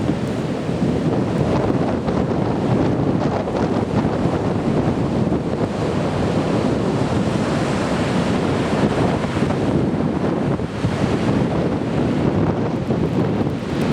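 Heavy typhoon swell breaking on a sand beach: a steady, dense wash of surf noise with no breaks, with wind buffeting the microphone.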